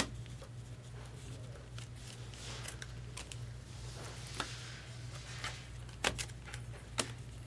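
Stiff chrome trading cards being flipped through by hand, their edges giving a few sharp clicks as cards are slid off the stack. A steady low hum runs underneath.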